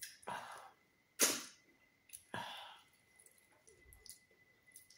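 Close-miked eating sounds from a person eating yam and eggplant sauce by hand: three short, sharp mouth and breath sounds about a second apart, the loudest about a second in.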